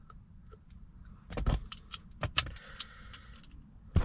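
Irregular light metallic clicks and clinks of a hand tool working on a blower motor mounting screw, beginning about a second and a half in.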